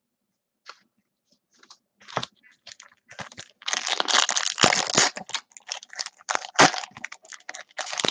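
A Topps Chrome trading-card pack's foil wrapper being torn open and crinkled by hand. A few faint ticks come first, then a dense burst of crinkling and tearing from about three and a half seconds in, then a run of short crackles as the wrapper is handled.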